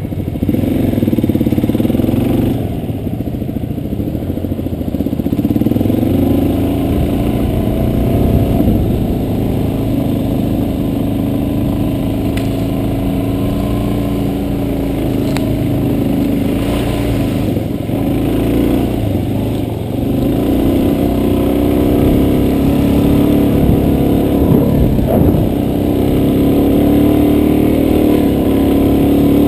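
Off-road vehicle engine running under way, its pitch rising and falling again and again as the throttle is worked, with a brief knock or two.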